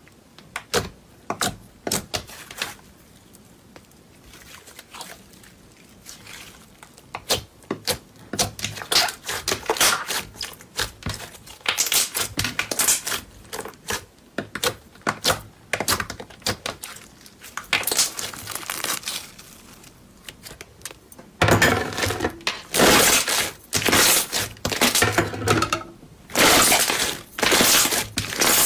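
Slime being squished and pressed, making bursts of crackling and popping that come louder and closer together from about two-thirds of the way in.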